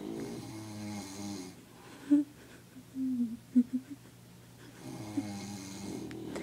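Snoring: a long snore at the start and another about five seconds in, with a few short squeaky whistles between them.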